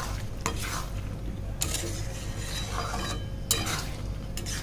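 Metal spatula scraping and clinking against a metal kadhai while stirring boiled chana dal into the masala as it fries, about four strokes.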